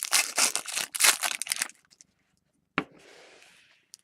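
Trading-card pack wrapper crinkling and tearing in a dense run of crackles for about two seconds, then a single sharp snap near the three-second mark followed by softer rustling.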